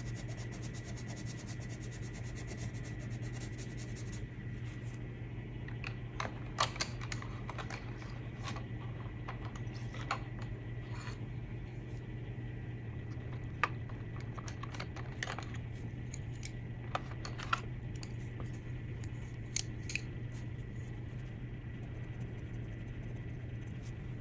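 Colored pencil scratching rapidly back and forth on paper for the first few seconds. After that, scattered sharp clicks of wooden pencils knocking against each other and their case as pencils are picked out and put back, over a steady low hum.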